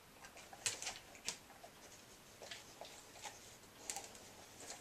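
Quiet sipping from a glass tumbler, with a few faint, short clicks spaced out over low room tone.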